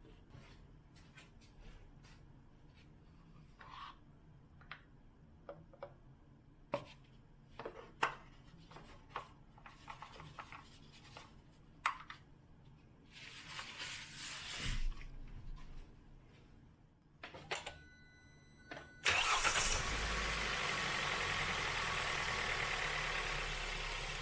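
Scattered small clicks and handling knocks, then about three-quarters of the way through the Hyundai i30's 1.4 MPI four-cylinder petrol engine starts abruptly and settles into a steady idle.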